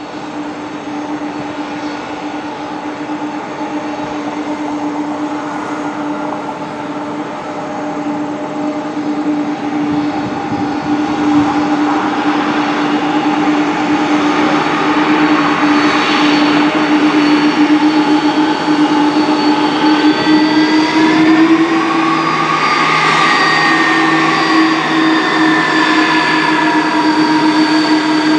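McDonnell Douglas MD-11F freighter's three Pratt & Whitney PW4000 turbofans whining at taxi power as it turns onto the runway. It is a steady whine of several tones that grows steadily louder as the jet swings to face, with one tone sliding up and back down about two-thirds of the way through.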